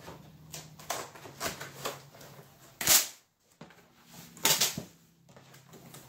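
Cardboard box being opened by hand: flaps pulled open and cardboard scraping and crackling in irregular clicks, with the sharpest cracks about three seconds in and again a second and a half later.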